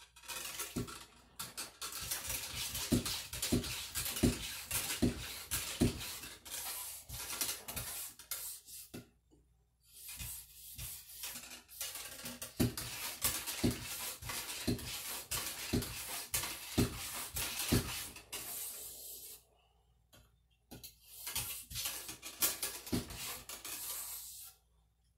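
Cleaning rod with a bore brush pumped up and down inside the water-filled barrel of a Traditions black-powder muzzleloader, scrubbing out powder fouling: a wet scrubbing swish with a knock at each stroke, about two strokes a second. It comes in three runs, with short pauses about nine seconds in and near the end.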